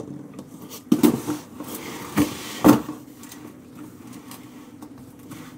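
Steel transfer-case drive chains (rocker-pin chains for a BMW X5 NV125) being handled on a table: a knock about a second in, a short rattle of metal links, then two sharper knocks, the loudest just before three seconds.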